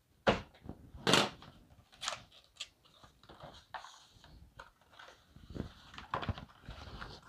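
Cardboard packaging being cut and pulled open with a box cutter: a few sharp scrapes and crinkles, the loudest about a second in, with rustling of the box between.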